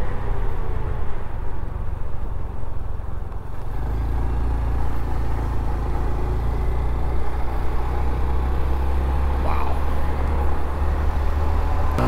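Honda Trail CT125's small single-cylinder engine running as the bike is ridden slowly in a low gear. The engine note changes and holds steadier from about four seconds in.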